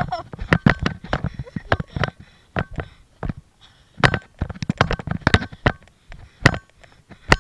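Irregular knocks and scuffs of a body-worn camera being jostled as its wearer steps and moves about, a sharp knock every half second to second or so.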